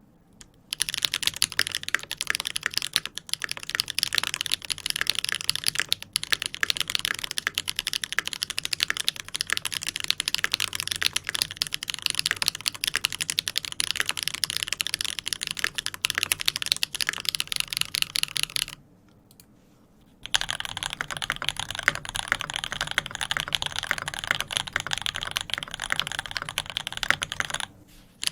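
Steady, fast typing on a custom mechanical keyboard with a brass plate and GMK keycaps. The typing pauses briefly about two-thirds of the way through, then carries on and stops shortly before the end.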